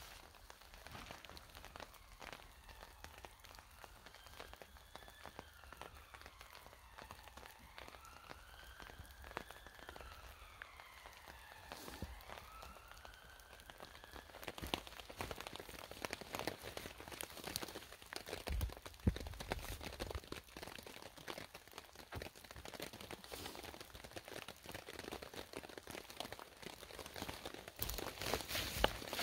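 Rain and meltwater dripping onto the woodland floor and a tarp, a dense patter of small drips. Gliding whistled notes rise and fall over the first half, and a few dull low thuds come in the second half.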